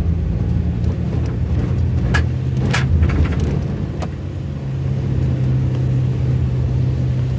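Car engine running steadily under way, its low hum dropping slightly in pitch about two seconds in, with a few brief clicks.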